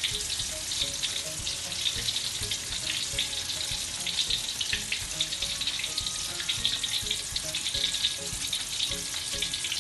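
Chicken strips deep-frying in hot oil: a steady sizzle with fine crackling throughout.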